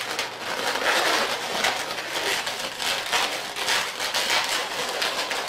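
Latex twisting balloons rubbing against each other and against the fingers: an uneven, scratchy rubbing noise. The small black balloon bubbles for the eyes are being pushed in between the balloons of the face so that they stay wedged.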